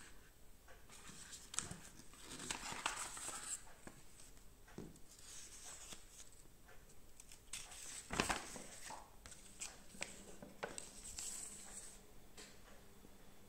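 Handling of a cardboard box and a printed paper sheet: faint paper rustling and crinkling with scattered light taps, and one louder knock about eight seconds in.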